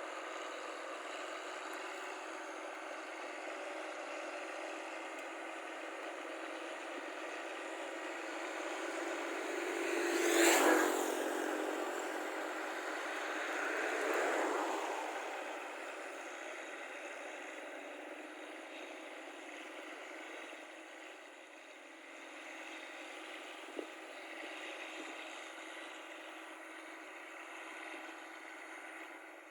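Steady engine and road noise, with a vehicle passing close by about ten seconds in: a sharp loud rush that drops in pitch as it goes away, followed by a second, smaller pass a few seconds later.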